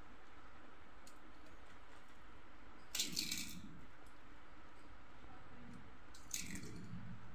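Hand mixing a chickpea chaat on a steel plate and crumbling crisp crackers over it. Two short crackling, rustling bursts, about three seconds in and again near the end, over a faint steady background.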